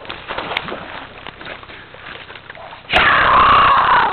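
Faint knocks and rustling, then about three seconds in a boy's loud, drawn-out yell lasting about a second.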